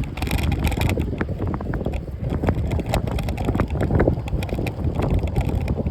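Wind buffeting the microphone while riding a bike, a steady low rumble with many scattered clicks and rattles.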